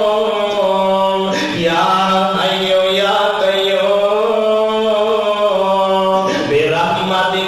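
A man's voice chanting in long, held melodic notes, the pitch moving slowly, with short breaks about a second and a half in and again near the end, over a steady low tone held underneath.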